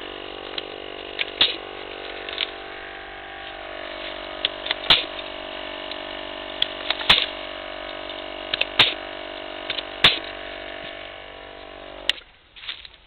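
Battery-powered air compressor running with a steady hum while a pneumatic pruning shear snaps shut on branches, a sharp cut every second or two. The compressor's hum drops and stops about twelve seconds in.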